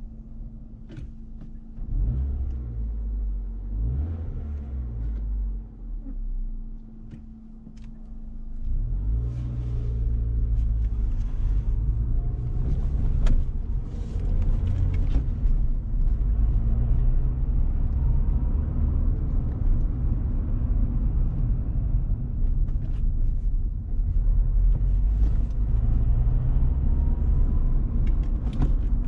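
Car running, heard from inside the cabin: a quieter stretch with a steady low hum, then from about nine seconds in a louder low rumble of engine and road noise as the car drives on.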